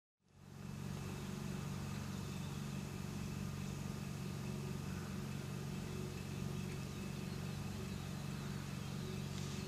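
Steady low mechanical hum, like an engine running at idle, with several steady low tones over a faint even hiss; it fades in right at the start.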